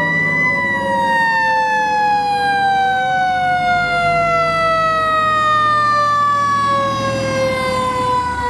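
Antique fire truck's siren wailing: it peaks about half a second in, then winds slowly down in pitch through the rest, over the low running of the trucks' engines as they pass close by.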